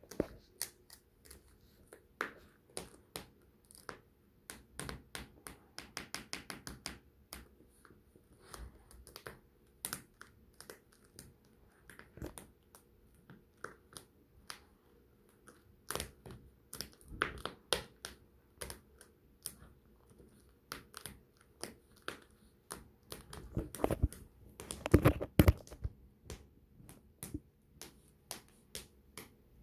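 Close rubbing and handling noise: irregular small clicks and scratchy rustles. A louder cluster comes about 24 to 26 seconds in.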